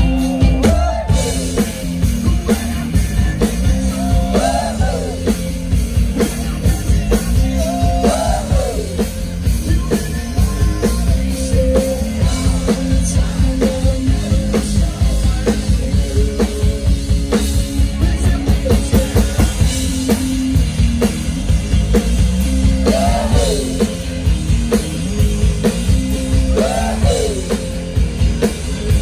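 Live rock band playing loudly: a driving drum-kit beat with bass and electric guitar, and short sliding high notes that recur every few seconds.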